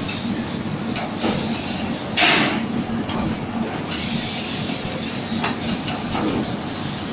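QF-682 pneumatic automatic heel nailing machine at work, with a loud, short air hiss about two seconds in and a few lighter knocks over a steady factory machinery hum.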